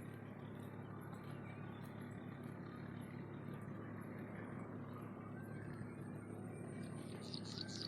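Steady outdoor background rumble with a low hum underneath. A few short, high bird chirps come near the end.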